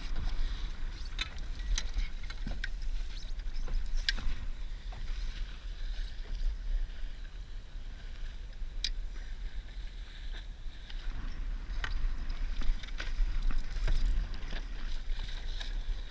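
Laser sailing dinghy's hull pushing through choppy water in strong wind: rushing water with irregular sharp splashes and slaps of spray against the hull, over a steady low rumble of wind on the microphone.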